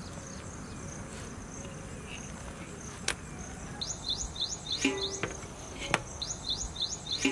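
Insects chirring steadily, a fast pulsing high buzz. In the second half come two short runs of quick rising chirps, each about a second long, and a few sharp knocks.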